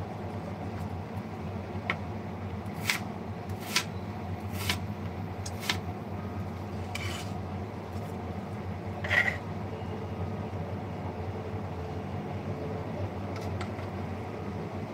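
Kitchen utensils and dishes clinking and knocking as they are handled during cooking, about seven scattered strikes in the first two-thirds, over a steady low hum.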